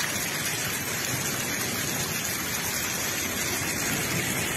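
Steady rushing of water, an even hiss with no breaks, from rain or meltwater after a hailstorm.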